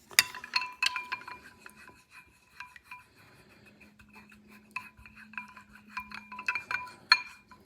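Small metal knife parts clinking and rattling in a dish that rings after each hit, a run of light clicks with the loudest knocks right at the start and about seven seconds in, as the parts are set in to soak.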